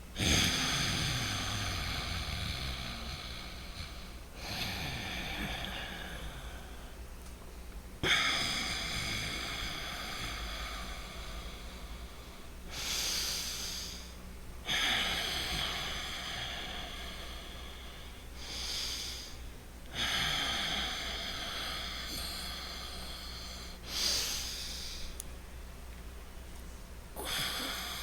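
Loud, deliberate breathing in and out through the nose, each breath a rushing hiss that starts sharply and tails off over a few seconds, with short pauses between; about nine breaths, some much shorter than others.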